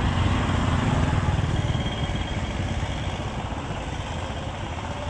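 Small motorbike engine running close by, louder for the first couple of seconds and then fading, over the steady noise of a busy street.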